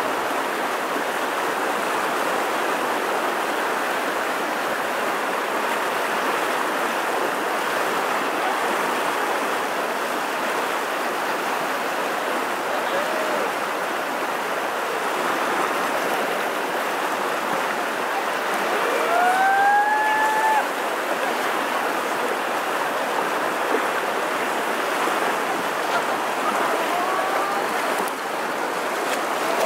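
River water rushing and splashing over rocks in a riffle, a steady hiss. About two-thirds through, a short call rises in pitch and then holds briefly.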